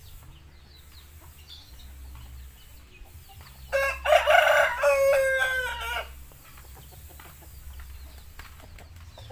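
A rooster crows once, loudly, about four seconds in, the crow lasting about two seconds, with faint clucking from other chickens.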